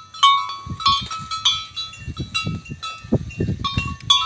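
Water buffalo neck bells clanking irregularly, several short ringing strikes a second, as the animals move their heads while grazing. Low rustling runs beneath.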